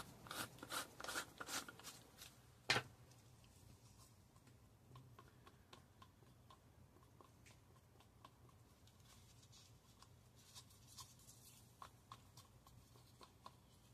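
Wooden craft stick stirring brown mica powder in a plastic cup: quick scraping strokes in the first two seconds, a sharp tap near three seconds, then faint, scattered scrapes.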